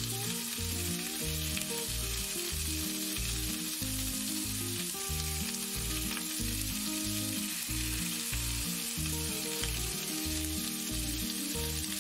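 Lamb cutlets frying in hot oil in a pan, a steady sizzle.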